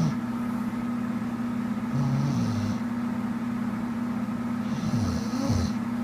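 A person snoring in a regular rhythm, a breath about every two and a half seconds, over a steady low hum.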